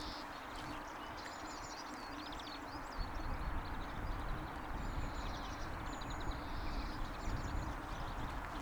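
Small songbirds singing in quick chirping phrases over a steady outdoor hiss and a low hum. About three seconds in, gusting wind starts buffeting the microphone with a low rumble.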